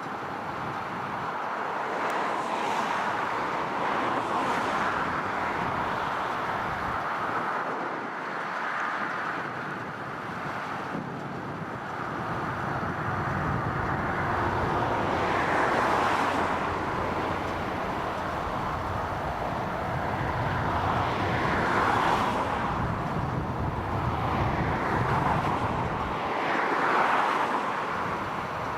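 John Deere tractor pulling a Krone big square baler while baling silage, a continuous machinery noise that swells louder every few seconds.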